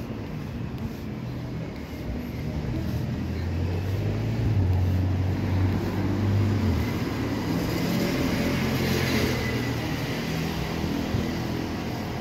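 Street traffic going by: a heavy vehicle's engine hums low, loudest a few seconds in, then a passing vehicle's tyre noise swells and fades a little past the middle.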